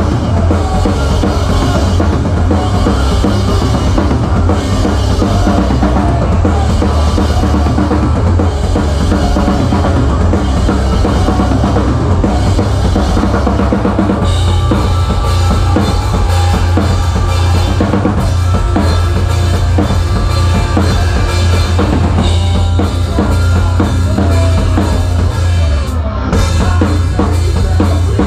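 Drum kit with Zildjian cymbals played hard in a live rock band, picked up loudly by a camera just over the kit, with heavy kick drum and snare hits over the band. About halfway through the playing changes to a brighter, busier section.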